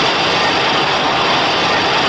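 Home-made Godzilla-style kaiju sound effect: a loud, steady, harsh noise with no clear pitch.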